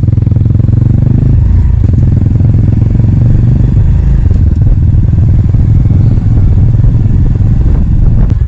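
Boat engine running steadily under way, a loud low drone with fast, even firing pulses.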